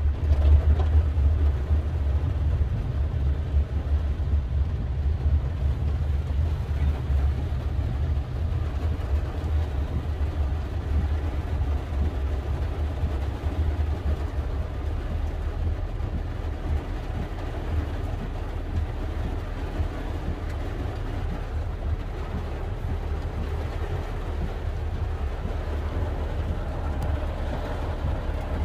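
Steady low rumble of a car driving, heard from inside the cabin. It is heaviest for the first several seconds and eases a little after.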